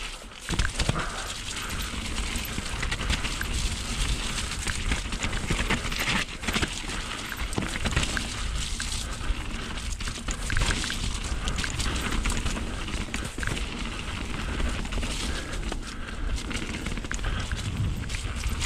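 A YT Capra full-suspension mountain bike being ridden down a rough, wet trail: tyres rolling over rocks and roots, with a dense stream of small knocks and rattles from the bike, over a steady low rumble of wind and trail noise on the microphone.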